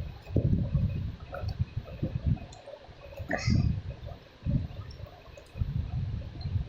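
Handling noise: a small cosmetic cream jar being handled close to the microphone, giving irregular low bumps and rubbing with a sharper click about three seconds in.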